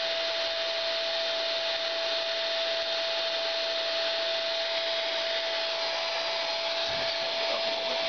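Handheld hair dryer running steadily, blowing hot air onto the glass bulb of a Crookes radiometer: an even rush of air with a constant whine. A soft low knock comes near the end.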